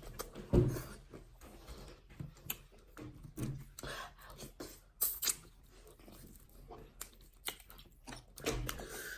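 People eating potato fufu with ogbono soup fast: wet mouth sounds and irregular clicking smacks, with a couple of louder knocks about half a second in and again around five seconds.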